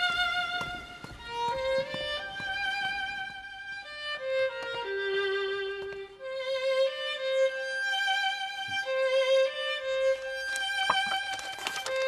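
Background music: a violin melody of long held notes with vibrato.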